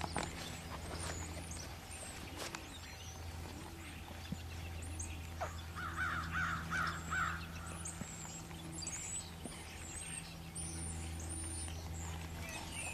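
Birds calling and chirping, with a burst of quick repeated calls about six seconds in, over a steady low hum.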